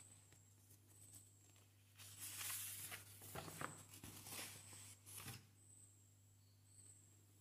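Paper rustling and sliding in several short noisy bursts over about three seconds as a sheet is handled and changed, over a low steady hum.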